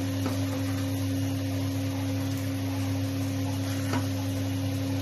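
A steady low hum with a faint click about four seconds in.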